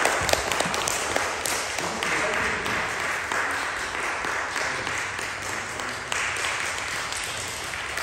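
Audience applause: people clapping steadily, easing off slightly near the end.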